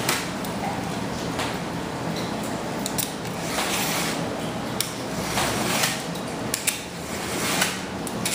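Utility knife scoring a 1/16" maple veneer along a steel straight edge: several scratching strokes in a row, about one every second or so, with a few sharp clicks between them.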